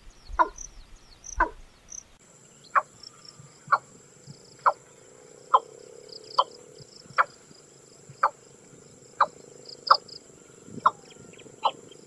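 Watercock (Gallicrex cinerea) calling: a series of short, hollow notes repeated evenly about once a second. A steady high whine runs in the background from about two seconds in.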